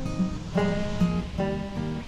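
Acoustic guitar music: plucked and strummed notes, changing a few times a second.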